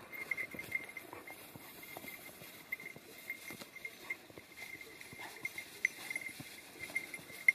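Footsteps of a person walking over a grassy, rocky slope: irregular soft steps and grass brushing against the legs, with one sharper knock near the end.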